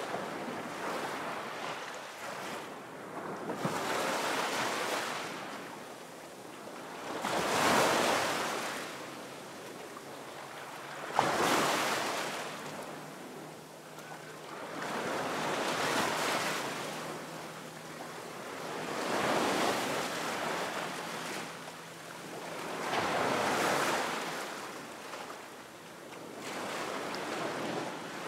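Ocean waves surging and washing in, a rushing noise that swells and fades about every four seconds, with one sharper hit about eleven seconds in.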